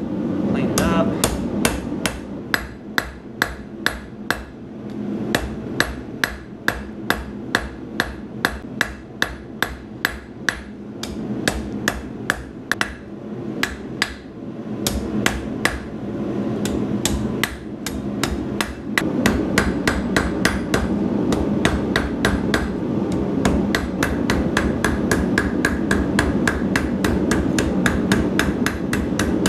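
Hand hammer striking a red-hot steel bar on an anvil in steady, evenly paced blows, about two a second and quickening in the last third, drawing the bar out to a point. A steady rushing noise runs underneath and grows louder about two-thirds of the way through.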